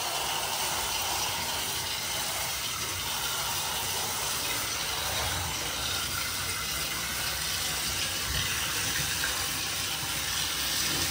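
Handheld shower head spraying a steady stream of water over a wet cat and into a bathtub, a constant hiss.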